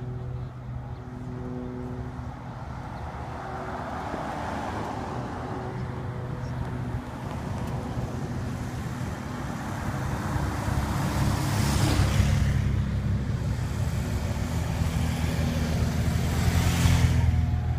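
Escort vehicles of a bike race, a car and several motorcycles, approaching and passing on the road, their engine and tyre noise building steadily. One passes loudly about twelve seconds in, and a motorcycle passes close near the end.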